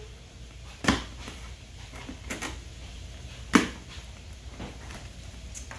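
A cardboard shipping box being cut open and handled. A few sharp knocks and scrapes of cardboard, the loudest about a second in and another about three and a half seconds in.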